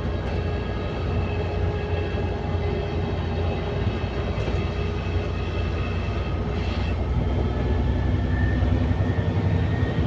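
ADL Enviro400MMC double-decker bus with a Voith automatic gearbox, heard from inside the saloon while under way: a steady low engine and drivetrain rumble with faint steady whining tones above it, growing louder over the last couple of seconds.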